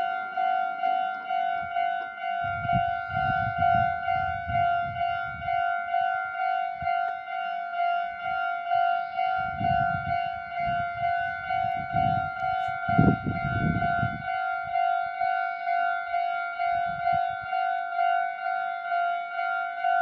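Japanese railway level-crossing alarm ringing steadily: an electronic bell repeating an even ding-ding, the warning that a train is approaching. Bursts of low rumbling noise come and go, loudest about two-thirds of the way through.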